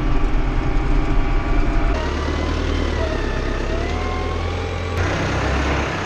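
Deutz-Fahr Agroplus 85 tractor's diesel engine running while the tractor moves, heard in a few short cuts that change the sound abruptly about two and five seconds in. Between those cuts a faint whine rises and falls in pitch over the engine.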